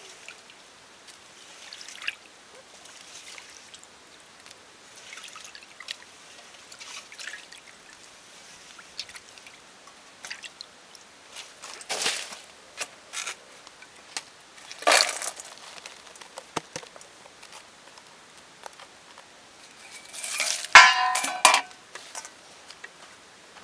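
Hands swishing and rubbing June beetles in an aluminium basin of water, with scattered splashes and drips and two louder splashes in the middle. Near the end comes a loud metallic clatter and clang with a brief ringing, as the beetles and metal bowl are handled.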